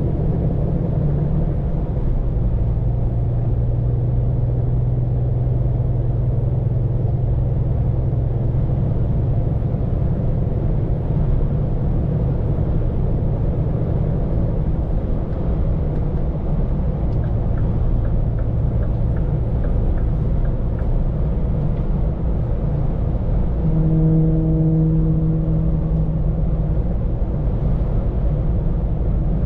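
Scania P410 truck's engine running steadily with road rumble while driving, heard from inside the cab. A faint regular ticking comes in for a few seconds past the middle, and a brief steady hum joins later.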